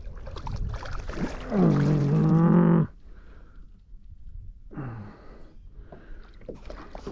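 A man's long wordless groan of effort, falling in pitch and then held, followed a couple of seconds later by a short falling grunt, with scattered small knocks of handling.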